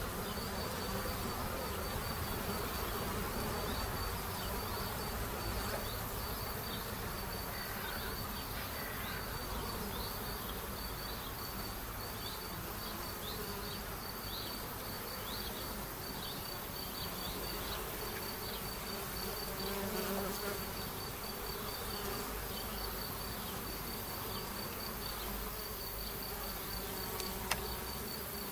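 Honeybees buzzing steadily at a hive entrance as they come and go, with individual bees flying close by now and then.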